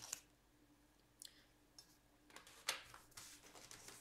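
Near silence with a few faint clicks and short rustles of paper and coloured pencils being handled on a desk, the sharpest about two and a half seconds in.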